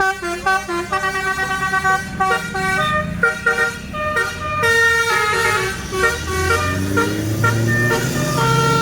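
Basuri telolet horn on a tour bus playing a quick melody of stepped, multi-tone notes. Near the end the bus engine underneath rises in pitch.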